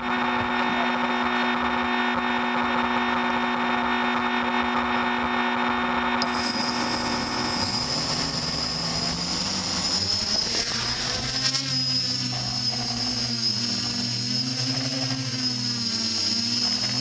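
Multirotor drone's motors and propellers running steadily on the ground, heard from the drone's own onboard camera; about ten seconds in they spin up, their pitch rising and wavering as the drone lifts off and climbs. A high electronic whine joins about six seconds in.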